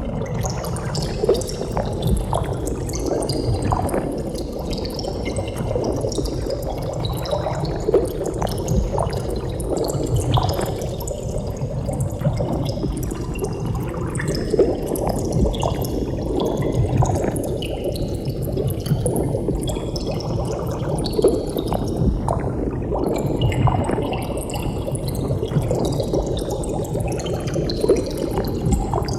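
Water bubbling steadily, with many bubbles gurgling and popping in a dense, unbroken stream.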